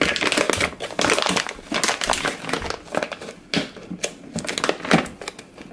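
Clear plastic zip-lock bag crinkling and rustling in irregular crackles as hands pull it open and slide the radio out of it.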